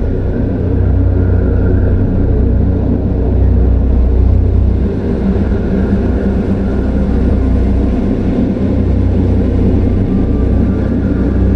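Dark horror ambience drone: a loud, deep, continuous rumble with faint held eerie tones above it that swell slightly near the start and again near the end.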